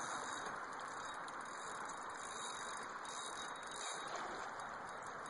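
Flowing river water, a steady even rush.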